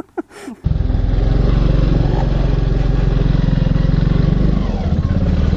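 A man's voice ends about half a second in, then a Honda dirt bike's engine runs loud and steady as it is ridden, heard from on the bike itself. Its note drops a little near the end.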